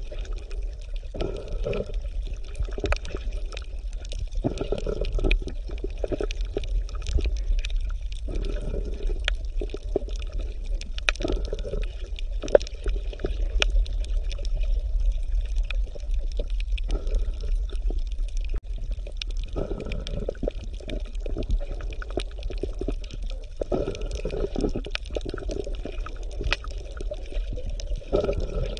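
Bubbling, gurgling water over a steady low rumble, with irregular bursts of bubbles every few seconds.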